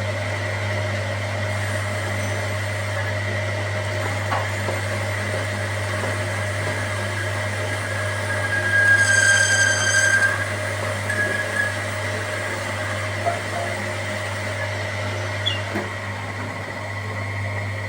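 Steady low mechanical hum of a running machine, with a louder high-pitched whine lasting about two seconds around the middle.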